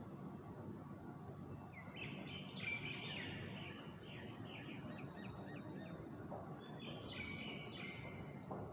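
Faint birds chirping in two short bouts of quick repeated notes, about two seconds in and again near the end, over a steady low background hum.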